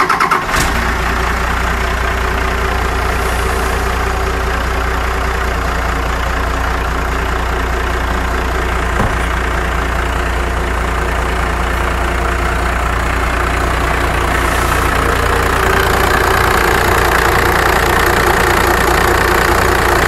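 A 1995 Dodge Ram 3500's 5.9 Cummins straight-six diesel catches right at the start and then idles steadily. It gets a little louder in the last few seconds.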